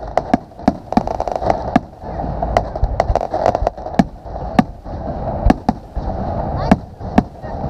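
Fireworks exploding in an irregular rapid series of sharp bangs, some a fraction of a second apart, over a steady crackling hiss.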